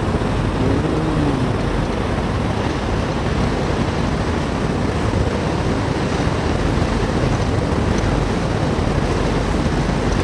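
Steady noise aboard the Staten Island Ferry under way: the ferry's engines mixed with wind and water.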